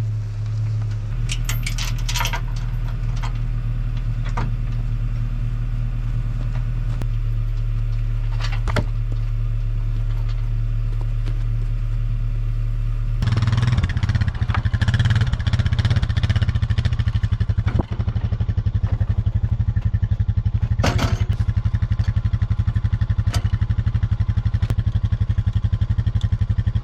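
A four-wheeler (ATV) engine runs steadily, then picks up and gets louder about halfway through, with a few sharp knocks and clanks along the way.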